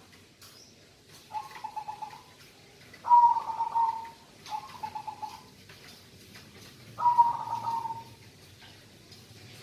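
Zebra dove (perkutut) cooing: four separate coo phrases at a steady mid pitch. Two have a rapid trilled stutter, and two start loud and trail off.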